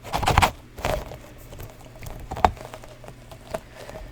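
Fidget toy being pressed and played with by hand: a quick run of sharp clicking pops at the start, then single pops spaced about a second apart.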